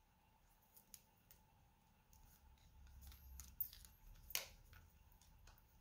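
Faint handling noise from a Casio G-Shock GA-B2100 wristwatch turned over in the hands: soft rubbing of its strap and case with a few small sharp clicks, the loudest two about three and a half and four and a half seconds in.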